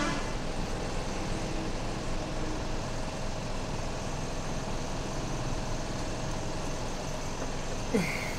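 Steady background noise with a low hum, unchanging throughout, with a brief short sound near the end.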